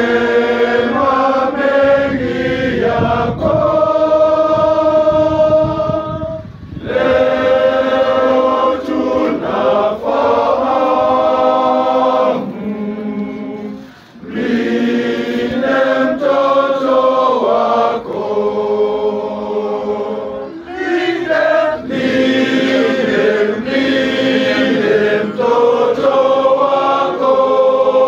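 A men's choir singing a hymn together, in long held phrases with short breaks about every seven seconds.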